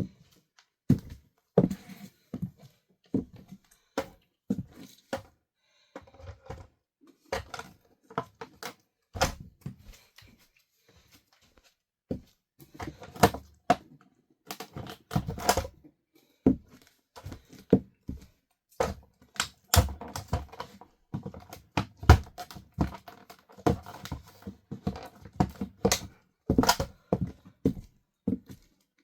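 High heels stamping on a plastic RC car: irregular sharp knocks and cracks of heels on plastic. The knocks are spaced out at first, then come thicker, with bursts of dense crackling about halfway through.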